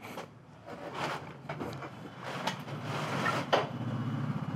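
A few sharp clicks and knocks of a parked motorcycle being handled at the handlebars. From about halfway through, a low steady engine hum builds up beneath them.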